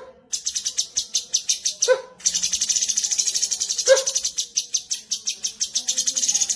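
Cucak cungkok songbird singing a fast, high, chattering trill. The trill stops briefly twice, and a short, lower, sharp note comes about every two seconds.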